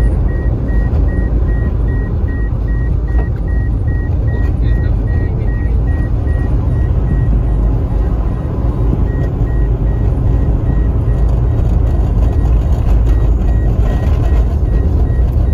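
Steady low rumble of engine and tyre noise inside a moving car, with a faint electronic warning chime from the car beeping evenly about two to three times a second, which pauses briefly about halfway through.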